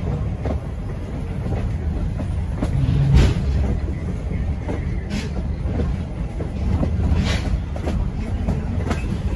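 Passenger railroad car rolling on the rails: a steady low rumble from the wheels and track, with scattered clicks and knocks of the wheels over rail joints, the loudest knock about three seconds in, as the car crosses a small bridge.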